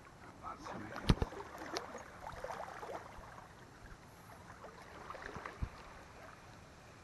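Wading through a shallow creek: water sloshing and splashing around the legs in irregular strokes. There is a sharp knock about a second in and a softer thud a little past the middle.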